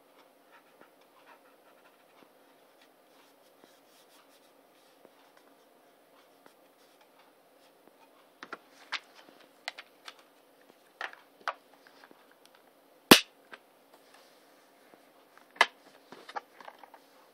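A DVD disc and its plastic case being handled, the disc going back into the case: faint handling at first, then a run of sharp plastic clicks and taps from about halfway. One loud snap comes a few seconds later and another strong click near the end.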